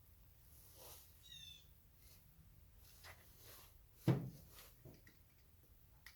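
One dull knock about four seconds in, like a metal tool set down on a hard surface, among a few faint clicks of handling. A short high chirp sounds about a second in.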